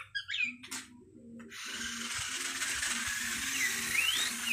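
Battery-powered toy remote-control off-road buggy running, its small electric motor and plastic gears giving a steady high whirr that comes on about a second and a half in.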